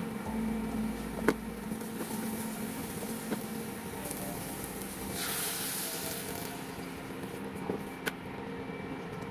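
Steady hum of an induction cooktop running under a non-stick pan of cabbage, with a few sharp clicks of a spatula against the pan. About five seconds in, a hissing sizzle lasts for about a second and a half.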